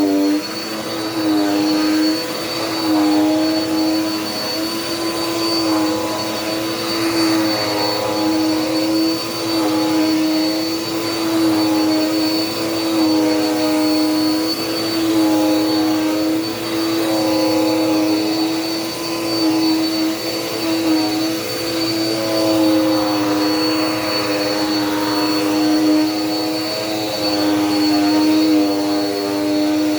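Dirt Devil Power Max vacuum cleaner running continuously: a motor hum with a steady high whine over the rush of suction. The pitch and level dip and rise every couple of seconds.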